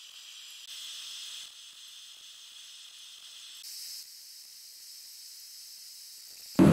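Faint, steady, high-pitched hiss with no hammer blows, stepping abruptly up and down in level a few times.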